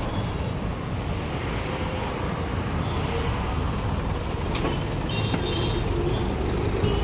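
Steady rumble of road traffic, with one sharp click about halfway through.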